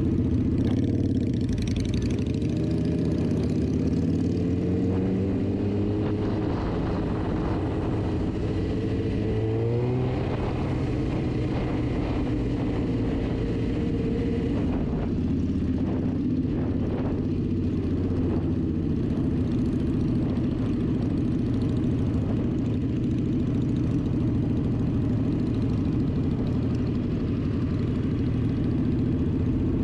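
A 2006 Suzuki GSX-R 750's inline-four engine, heard from the rider's seat, rising in pitch in several steps over roughly the first ten seconds as it accelerates, then running steadily.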